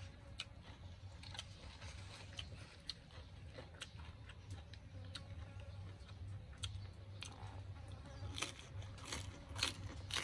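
Faint crunching and clicking of someone biting and chewing food, with more and louder crunches near the end.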